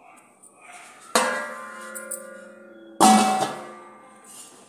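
A metal lid clangs twice onto a large metal pot being used as a stovetop oven, about two seconds apart. Each clang rings on for a second or so, and the second is the louder.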